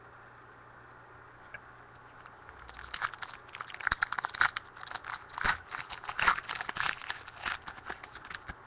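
A 2013 Panini Prizm football card pack's wrapper being torn open and crinkled. After a quiet start, a dense run of irregular crackling rustles begins nearly three seconds in and lasts about six seconds.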